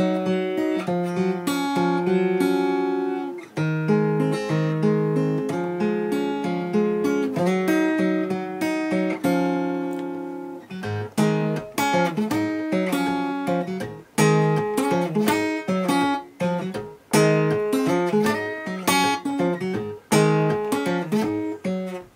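Acoustic guitar playing blues phrases. For about ten seconds it plays picked notes and chord shapes that ring on, then it changes to a quicker, choppier rhythm of short strokes with bass notes underneath.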